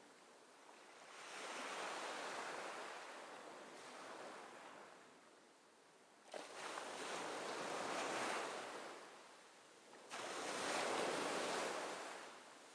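Surf: waves washing in, swelling and ebbing every few seconds, with two surges that start abruptly about six and ten seconds in.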